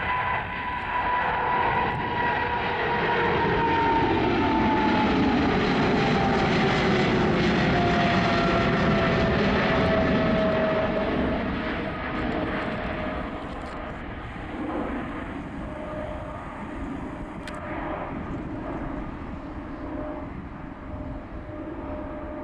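Boeing 777-300ER jet airliner on its takeoff run, its GE90 turbofans at takeoff thrust with a loud rushing noise and a whining tone that falls steadily in pitch as it passes. After about eleven seconds the sound drops off somewhat and carries on at a lower level.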